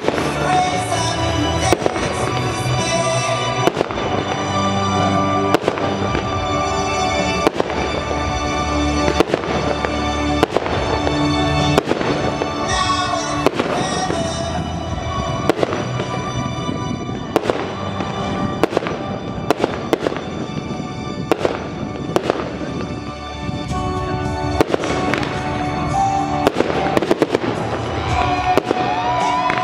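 Aerial firework shells bursting with frequent sharp bangs at irregular intervals, about one or two a second, over music.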